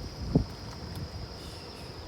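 Campfire burning: a low rumble of the flames with a soft knock about a third of a second in and a few faint crackles.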